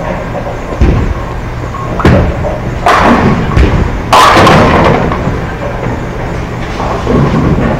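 Bowling alley sounds: several thuds and knocks of bowling balls landing and rolling, then a loud clatter of pins being struck about four seconds in, over the steady din of the hall.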